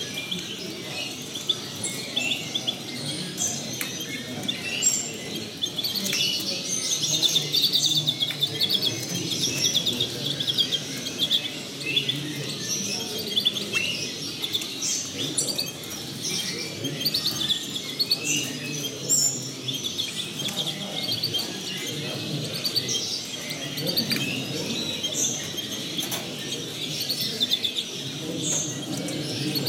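Many caged finches chirping and twittering in short calls and quick trills, busiest a few seconds in, over a low background murmur.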